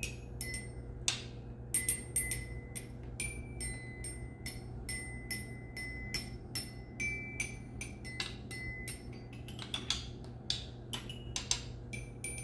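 Xylophone being tapped: a string of irregular single strikes, about two or three a second, each bar ringing briefly at one of a few different high notes.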